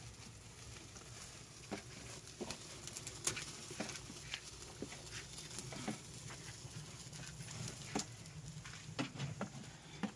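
Dry twigs burning in an earthen oven, crackling with irregular sharp snaps about once a second.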